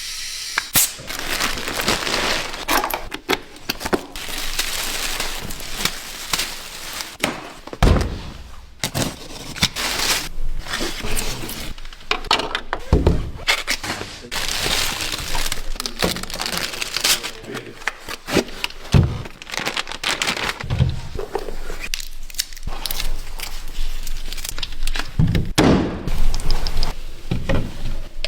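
Packaging being torn open and handled: irregular rustling and crumpling, many sharp cracks and snaps, and now and then a heavy thump.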